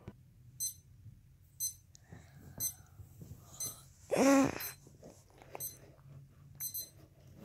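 High-pitched wake-up alarm beeping about once a second. A brief vocal sound from a person about four seconds in is the loudest thing.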